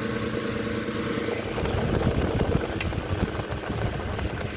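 1912 Westinghouse brass-bladed table fan running with a steady motor hum. About a second and a half in, a rough, rattling vibration grows over it: the unbalanced blade is shaking the fan. One sharp click sounds midway.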